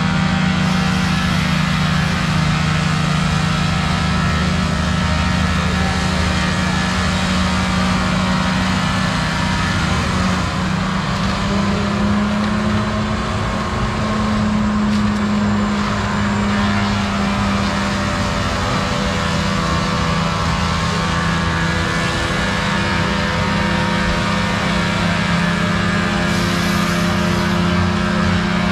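Large diesel engine of heavy logging equipment running steadily under load, its pitch rising slightly about eleven seconds in.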